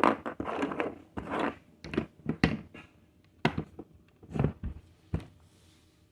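Plastic Lego pieces rattling and clicking as they are handled: a burst of rummaging clatter at first, then about five separate sharp clicks.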